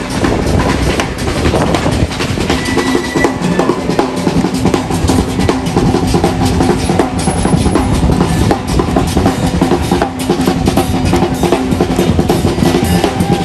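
Street brass band's percussion playing a driving beat on snare and bass drums, with held lower notes sounding underneath.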